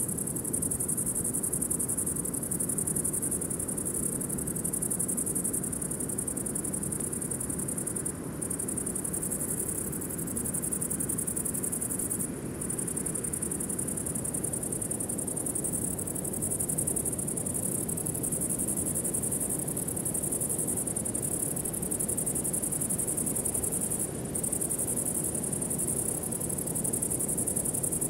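Steady, high-pitched insect chorus, like crickets trilling, over a low steady haze; the chorus drops out briefly a few times.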